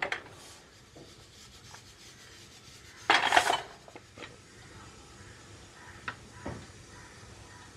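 A short scraping rush about three seconds in, then a few light knocks and scrapes of a wooden spatula against the pressure cooker pot as the cooked rice is fluffed.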